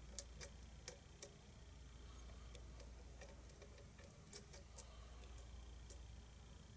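Small, sharp metallic clicks and taps of a lock pick and tension wrench working the pin stack inside a challenge lock's keyway. They come at irregular intervals, several within the first second or so and a cluster about four to six seconds in.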